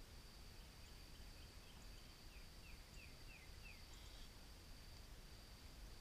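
Faint rural ambience: a steady high-pitched insect drone, with a bird calling a quick run of about five short falling notes in the middle.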